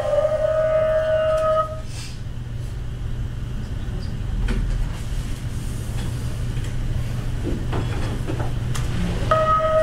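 Documentary film soundtrack: a held tone with overtones slides down and stops about a second and a half in, leaving a steady low hum with a few scattered clicks. The held tone comes back near the end.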